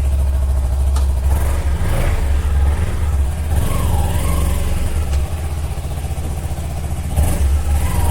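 Kawasaki Ninja motorcycle riding through city traffic: engine and road noise under a heavy, steady low rumble.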